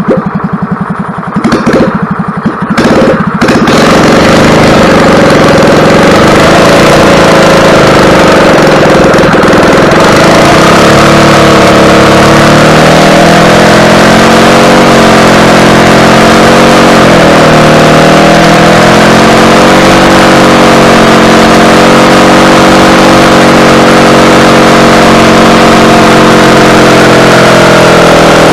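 Rebuilt EZGO golf cart single-cylinder four-stroke gas engine being started: it turns over with a few sputters, catches about three and a half seconds in, then runs steadily. Its speed wavers up and down for a few seconds in the middle before settling, as the freshly rebuilt engine warms up for break-in.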